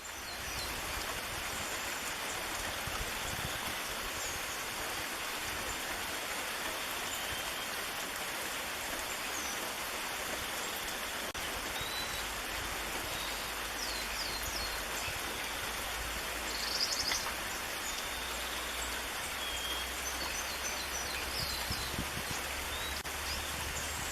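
Steady rain falling, an even hiss. Scattered short, high-pitched bird chirps sound over it, a cluster of them loudest about two-thirds of the way through.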